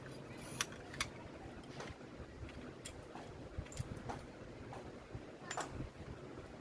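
Scattered light clicks and taps, about seven of them at uneven intervals, the two sharpest about half a second and a second in, over a low steady hum.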